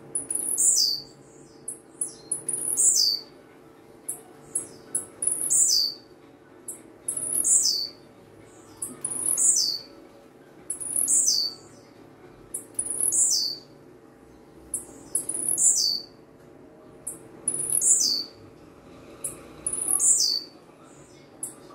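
Caged blue-black grassquit (tiziu) singing its short song over and over, about once every two seconds: each song is a high note sweeping downward, led in by a few short ticks.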